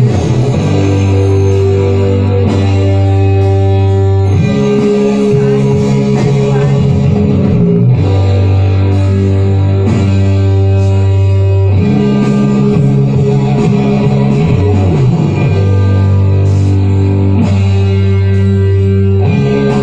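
Music with plucked strings and sustained low notes, played for belly dancing.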